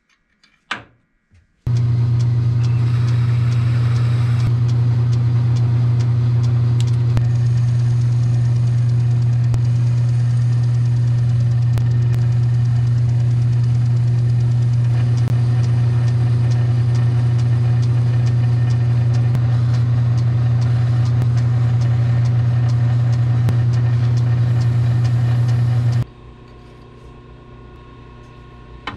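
Metal lathe running with a loud steady hum while a steel bolt held in its collet is turned down. A sharp click comes just before it starts, the running sound drops to a faint hum about 26 seconds in, and a click follows near the end.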